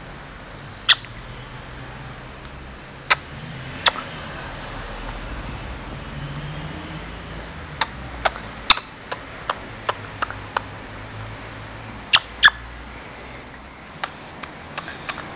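Monk parakeet's beak nibbling and clicking against a child's teeth: scattered short, sharp clicks, with a quick run of them in the middle.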